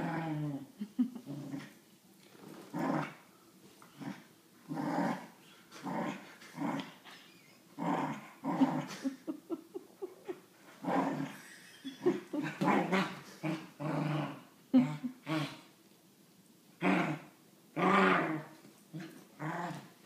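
Soft-coated wheaten terrier play-growling in short repeated bursts a second or two apart while playing with a toy.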